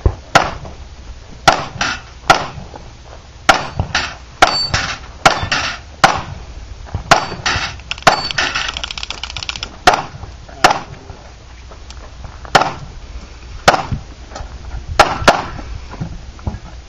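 A series of loud, sharp bangs or knocks at an uneven pace, roughly one a second and sometimes two close together, with a brief fast rattle about eight seconds in.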